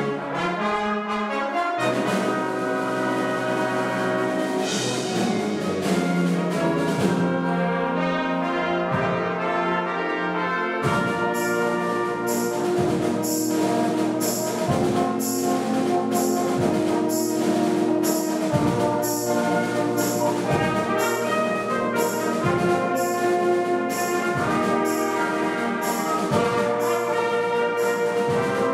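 Wind band playing: held brass chords, then from about eleven seconds in a steady drum beat of about one stroke a second under the brass.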